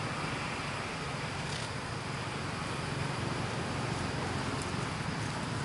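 Steady outdoor background noise: an even hiss with a low hum beneath it and a couple of faint clicks.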